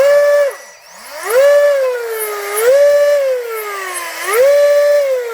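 Feilun FT012 RC boat's brushless motor revved in repeated bursts out of the water: a high whine that climbs sharply in pitch, holds, then sags, about every second and a half, sounding like an F1 car.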